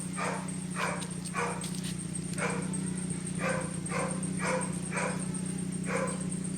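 A dog barking repeatedly, about nine short barks with uneven gaps, over the steady running of a Toyota Corolla AE101 fitted with an FGK Fujitsubo Legalis chambered muffler.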